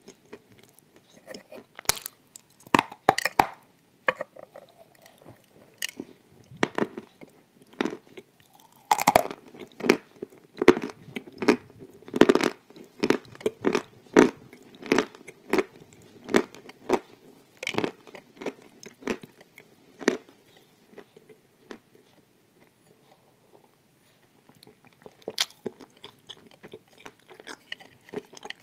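Crunchy cream-filled wafers being bitten and chewed close to a small microphone: irregular crisp crunches, thickest through the middle. They fade out for a few seconds before the chewing picks up again near the end.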